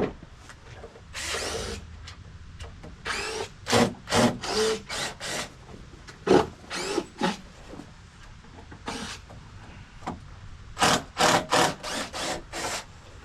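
A hand tool scraping and rasping on deck wood in short strokes, in irregular runs, ending with a quicker run of about six strokes.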